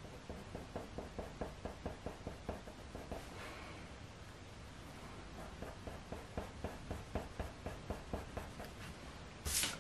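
Coloured pencil, a Faber-Castell Polychromos, scratching on hot-press watercolour paper in quick short strokes, about five a second, in two runs with a pause between. A short, louder hiss near the end.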